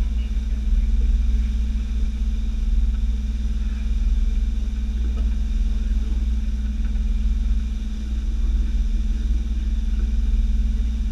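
Tour boat's engines running steadily while the boat cruises, a constant low drone with a steady hum over it.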